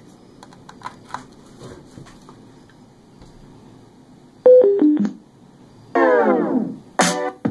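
Light clicks and handling of a USB flash drive being plugged into the portable Bluetooth speaker, then the speaker sounds a four-note descending electronic prompt chime as its mode button switches it to USB playback. A loud falling swooping tone follows, and music starts playing from the drive near the end.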